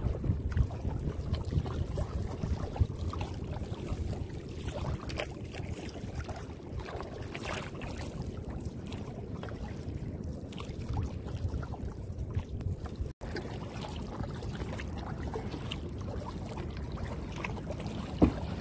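Paddling a kayak through calm backwater: small irregular splashes and drips from the paddle, over a steady low rumble of wind on the microphone.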